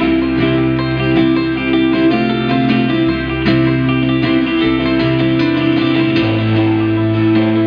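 Live acoustic band playing an instrumental passage: guitars picked and strummed over a held bass line that changes note about three seconds in and again near six seconds.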